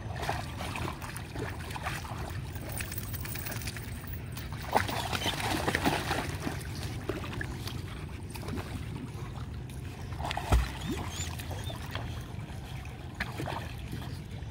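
Rottweilers swimming and paddling in lake water, splashing and sloshing, busiest about five to six seconds in, over a steady low rumble. A short thump about ten and a half seconds in.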